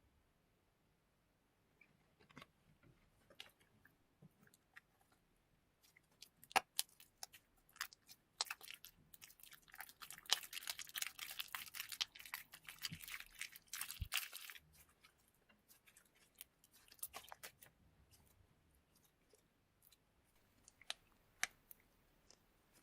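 Hands squishing and poking slime mixed with Orbeez water beads: scattered sticky clicks and pops, with a dense stretch of crackling in the middle that lasts about six seconds.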